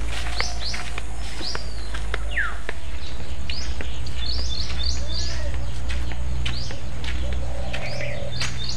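Songbirds chirping, many short, sharp high calls, some in quick runs of three or four, over a steady low rumble.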